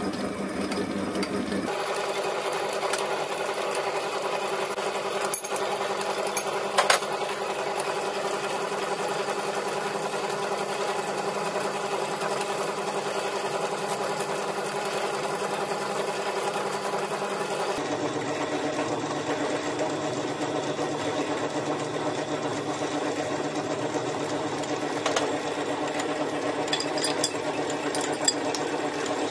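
South Bend lathe running, its motor and gearing humming steadily while a twist drill fed from the tailstock bores into the spinning workpiece. The hum shifts abruptly in pitch twice. There is a sharp knock about seven seconds in and a few clicks near the end.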